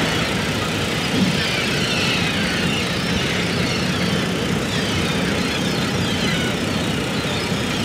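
A tractor's diesel engine running steadily, mixed with surf noise and scattered gull calls.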